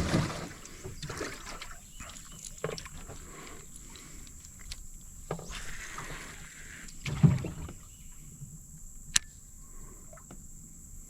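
Scattered knocks and bumps on a small fishing boat, loudest at the start and about seven seconds in, with a single sharp click about nine seconds in.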